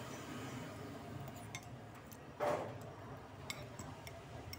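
Steel chopsticks clinking lightly against a ceramic noodle bowl, a few faint scattered ticks, with one brief, louder rushing noise about halfway through over a steady low hum.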